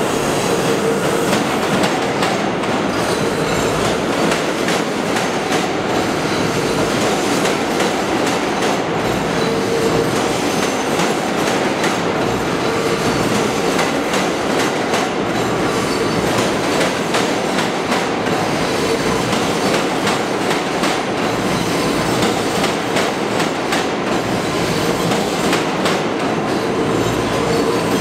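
New York City Subway R179 train passing on the track behind the columns, with a steady rumble, repeated clacks of the wheels over rail joints and a faint whine.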